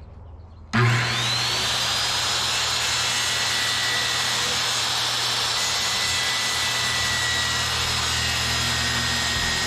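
Circular saw starting up about a second in, its whine rising quickly to full speed, then running steadily as it cuts through a Coosa board panel.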